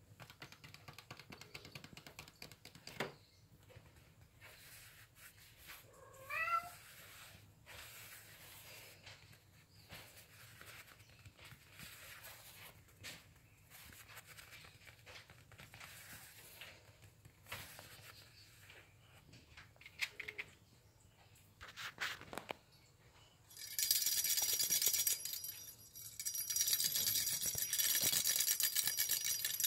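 A kitten gives one short meow about six seconds in, over faint rustling. Near the end a small bell jingles loudly in two spells.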